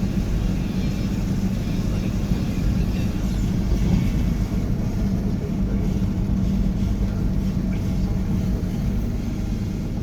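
Toyota MR2 driving along the road: a steady low rumble of engine and road noise, with a steady hum.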